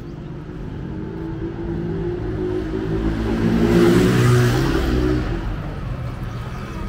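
A motor vehicle's engine passing close by, growing louder to a peak about four seconds in and then fading away.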